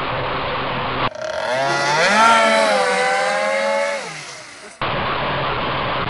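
BZM two-stroke petrol engine of an RC race boat at full speed, heard on board as a steady rough noise of engine and water spray. About a second in, heard from the shore instead, its high engine note rises in pitch, holds, then drops and fades as the boat runs past; near the end the on-board noise returns.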